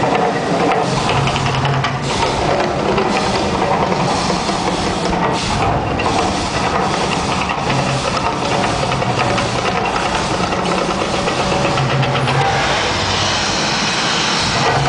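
Mirage volcano show eruption. A loud drum-driven soundtrack with a deep droning rumble plays over the rush of gas-fired flames and fireballs on the lagoon. A brighter hiss swells near the end as the fire burns highest.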